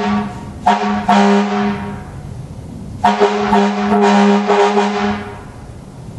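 Air horn blowing a chord of several steady tones in blasts: a short tap at the start, two quick blasts about a second in, then a longer blast of about two seconds from about three seconds in.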